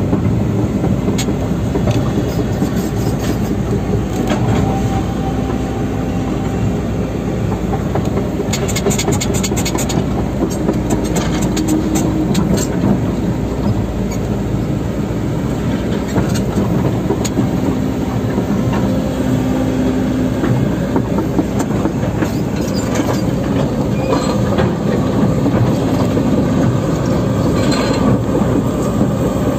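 Excavator's diesel engine running steadily, heard from inside its cab, with rattles and metallic clanks now and then, a cluster about nine to ten seconds in.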